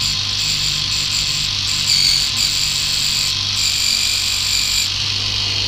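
Small electric reciprocating four-cylinder V engine running at about 3000 RPM: a steady low hum under an even, high whirring hiss.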